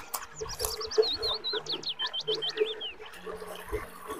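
Close chewing and lip-smacking of a person eating by hand. A bird sings a quick run of high chirping notes through the first three seconds or so, then stops.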